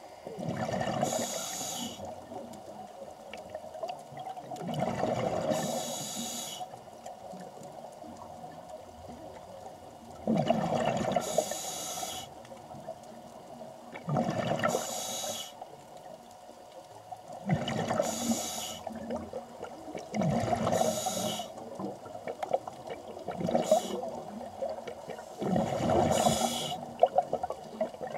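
Scuba breathing heard underwater: a regulator releasing bursts of exhaled bubbles about every three to four seconds, each lasting a second or two, with a quieter water hiss between them.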